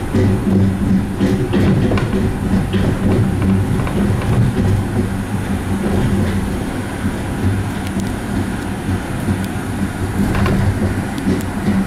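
Running noise of a Skyrail Midorizaka Line gondola, a cable-hauled car hung from a suspended monorail track, heard from inside the cabin as it travels: a steady low hum and rumble with occasional clicks.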